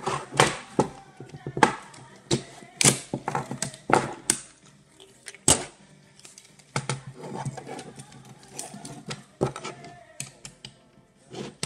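Plastic and metal parts of a DVD drive clicking and knocking against each other and the wooden table as the drive is taken apart by hand and a screwdriver is worked into its frame. Irregular sharp clicks, several of them loud, come in uneven clusters.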